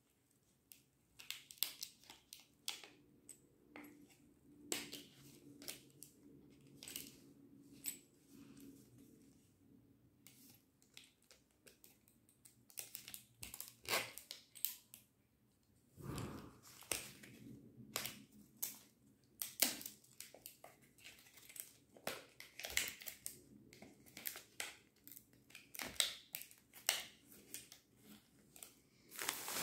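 Stiff clear plastic blister packaging being pried and bent by hand, giving irregular crackles and sharp clicks that grow busier and louder about halfway through; the hard plastic resists opening by hand.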